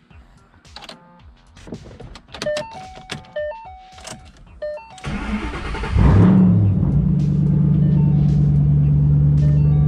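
Ford Shelby GT500's supercharged V8 being started with the key. The starter cranks about five seconds in, the engine catches a second later with a rev flare, then settles into a loud, steady idle.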